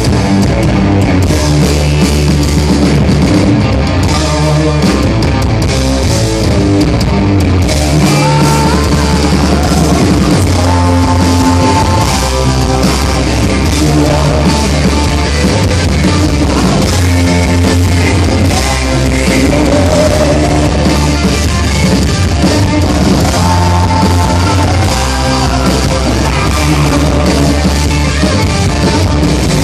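Hard rock band playing live at full volume, electric guitars and drums, heard from within the crowd in a club.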